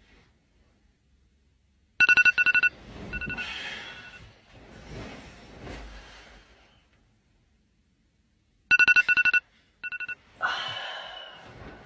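Phone alarm going off in two sets of rapid electronic beeping, about seven seconds apart, each lasting about a second. Between the sets there are softer, noisy sounds.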